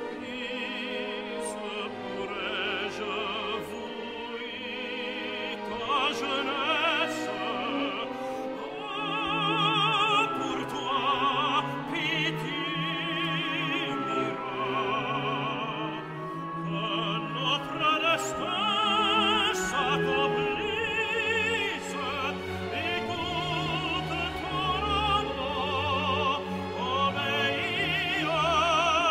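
Operatic singing with wide vibrato over a symphony orchestra: a passage of French late-Romantic cantata, the voices swelling louder after about nine seconds.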